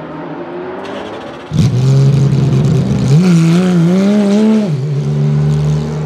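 Porsche 991.2 GT3 R's 4.0-litre flat-six racing engine comes in loudly about a second and a half in as the car pulls away from its pit stop. Its note wavers up and down for a couple of seconds, then settles to a steady note as the car drives off down the pit lane.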